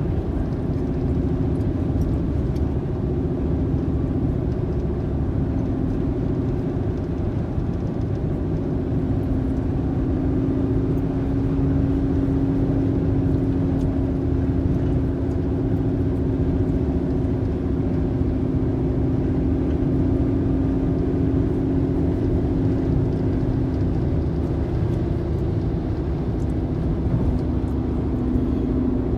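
A car driving at a steady speed, heard from inside the cabin: a continuous low rumble of engine and road noise with a steady hum.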